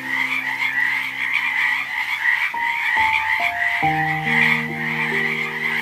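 A chorus of frogs calling in one dense, rapidly pulsing trill, over soft piano notes.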